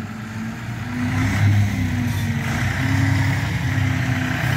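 Tractor engine running steadily, getting a little louder about a second in.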